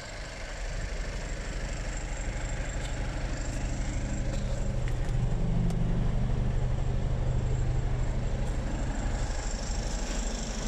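Mercedes Actros 2548 tractor unit's diesel engine idling steadily with an even low pulse, getting louder over the first few seconds and dropping back a little near the end.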